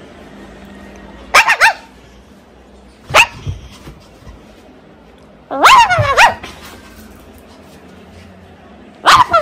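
Shih Tzu play-barking in short bursts: a quick run of three barks, a single bark, a longer run of barks in the middle, and more barks near the end.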